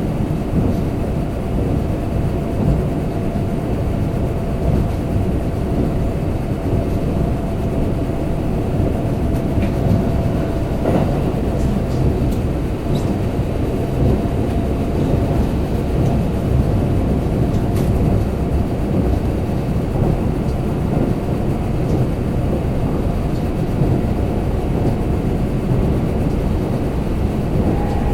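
Kintetsu limited express train running at speed, heard from inside the passenger car: a steady rumble of wheels on the rails with a faint steady tone over it and a few light clicks.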